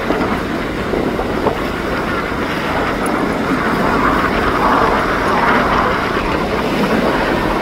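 An aircraft flying past: a steady rushing engine noise that grows louder a few seconds in and eases slightly near the end.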